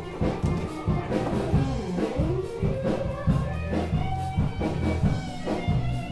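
A live blues-rock band rehearsing, playing continuously with a steady beat.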